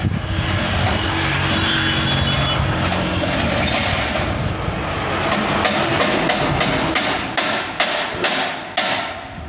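A run of hammer blows on a rolling-shutter's steel wall bracket, sharp knocks about two or three a second in the second half. They come over a steady background rumble.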